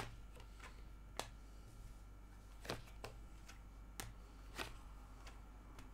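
Tarot cards being handled and shuffled by hand: a string of short, sharp card clicks at irregular spacing, the first the loudest.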